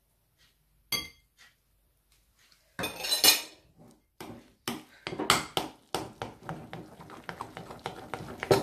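Metal utensil scraping and clinking against a glass mixing bowl while stirring a wet flour mixture into dough. There is one ringing clink about a second in, then a quick, irregular clatter from about three seconds in that grows busier.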